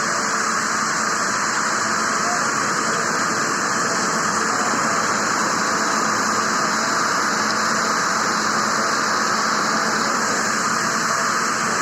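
Steady machine noise: an even hiss with a faint low hum beneath it, with no rhythm and no change in level.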